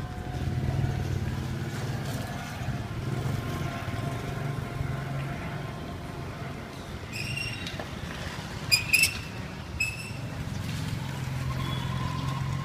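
A motor vehicle engine running with a steady low hum. Several short, high-pitched beeps come in the middle, the loudest pair about nine seconds in.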